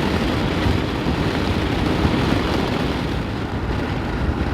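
Motorcycle underway: a steady engine hum mixed with wind rush.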